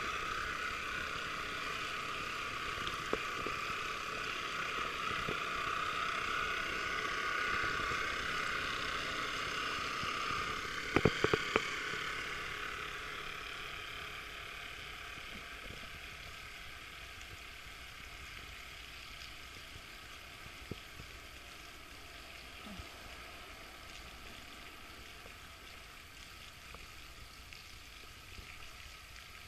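Radio-controlled model tug's motor and propeller running with a steady high whine that fades away as the boat moves off. A few sharp clicks come quickly together about eleven seconds in.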